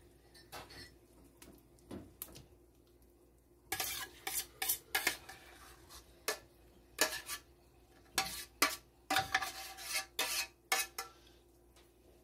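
Metal spoon scraping and clinking against a stainless steel saucepan and a ceramic casserole dish as a thick, creamy filling is scooped out and spread. A few light scrapes at first, then a busy run of quick clinks and scrapes from about four seconds in that dies away near the end.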